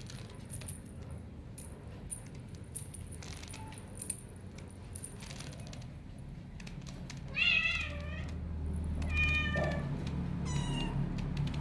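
Bengal kitten meowing three times in the second half, short high-pitched mews, the first the loudest. Before that there are light clicks and jingles from a small bell on a dangling wand toy.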